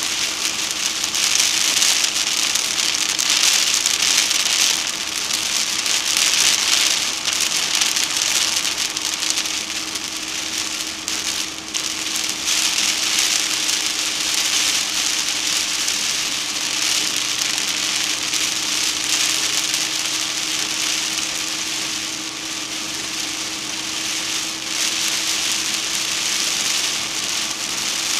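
Moderate rain falling on a moving car, an even hiss that swells and eases, with a steady hum from the vehicle underneath.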